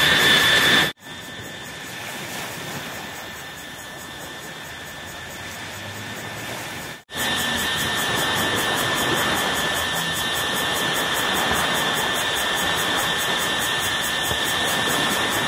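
Steady outdoor evening ambience: a soft wash of surf at first, then after a sudden cut a louder, steady hiss with a constant high-pitched whine running through it.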